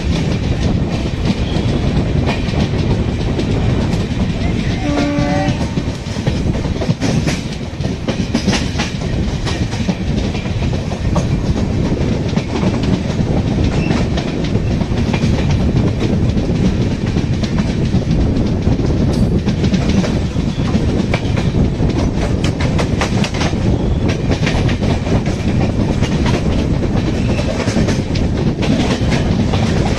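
Passenger train running along the track, heard from an open coach door or window: a steady rumble of wheels and rushing air, with clacking over rail joints. A short horn blast comes about five seconds in.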